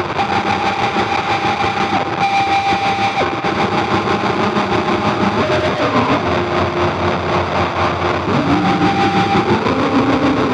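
Experimental noise drone from a Roland V-Synth XT processing an iPad's CP 1919 sound and played from a Haken Continuum Fingerboard, with overdrive gain and filter under finger control. It is a loud, dense, distorted rumble, with held tones sounding over it that slide up or down in pitch now and then.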